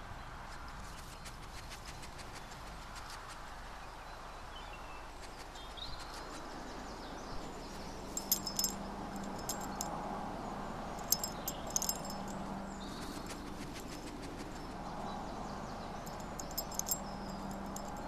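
Short clusters of light metallic jingling, three or four times, over a steady low hum.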